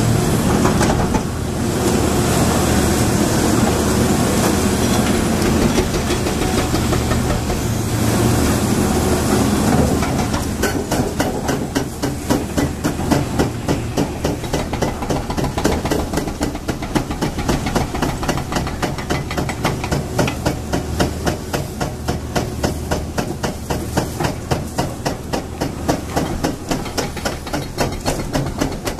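Liebherr demolition excavators' diesel engines and hydraulics running hard while their attachments break up concrete, with rubble crunching and falling. From about ten seconds in, a fast, regular knocking joins and carries on.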